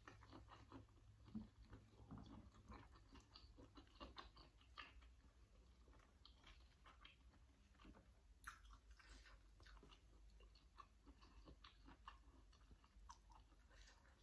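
Faint close-up chewing and crunching of raw vegetables eaten with chili dip: many small moist crackles and mouth clicks, with a crisper crunch about eight seconds in.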